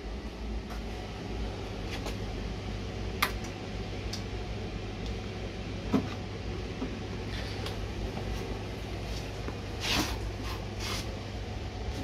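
Steady low mechanical hum of a flue fan dilution system fan running. Scattered clicks and knocks of handling sit over it, the sharpest about six seconds in as the gas boiler's control knob is turned to call for heat.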